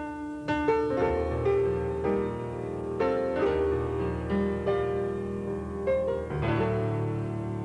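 Slow keyboard music, piano-like: chords struck roughly once a second over a held bass line, each note sounding and fading.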